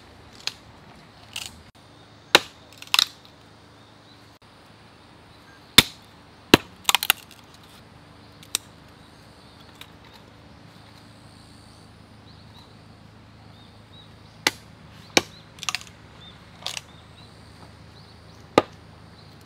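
A blade chopping small pieces of wood on a wooden block: about fourteen sharp, irregular strikes, some in quick pairs, with long gaps between them.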